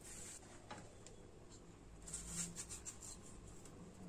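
Faint food-handling sounds on a bamboo cutting board: light scraping and small ticks, with a short patch of scratchy rustling about two seconds in.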